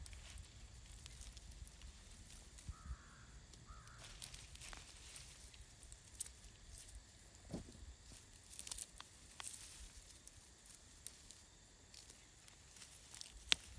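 Faint rustling and scattered small clicks and snaps, with a short falling call about seven and a half seconds in.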